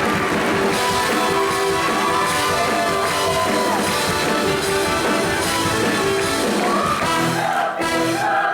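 Music: a show choir singing with a rock-style backing band, held notes over guitar and drums.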